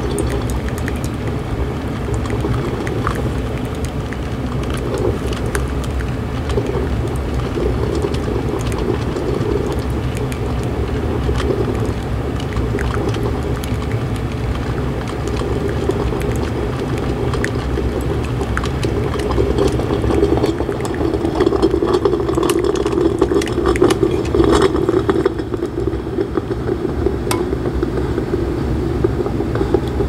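Black & Decker DCM6 single-cup drip coffee maker brewing: its 800-watt heater boils the water with a steady gurgling hiss while hot water runs and splashes from the brew basket, with no filter in it, into the mug. The crackling grows louder and busier in the second half.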